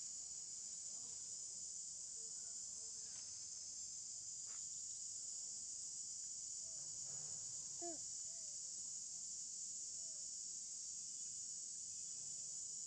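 Insects chirring steadily at a high pitch, faint, with a few faint short chirps and one brief call about eight seconds in.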